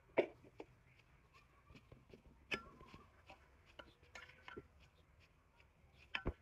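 Metal spatula knocking and scraping against a steel pot while fluffing cooked rice: a scatter of light clicks and knocks, the sharpest just after the start, about two and a half seconds in, and near the end.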